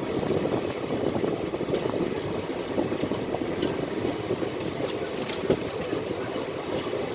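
Passenger train's coaches rolling on the rails: a steady rumble of wheels on track, with a few sharp clicks and clacks around the middle.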